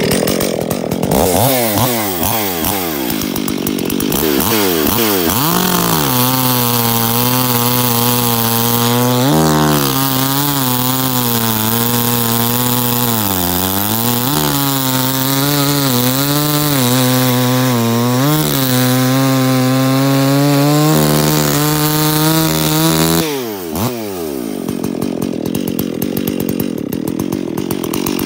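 Stihl 034 Super chainsaw, rebuilt with a ported muffler and base gasket delete, running at full throttle with a 20-inch bar while bucking a large log round. The engine note drops as the chain bites in and holds lower and wavering under the load of the cut for most of the time. About 23 seconds in it rises again as the saw comes free.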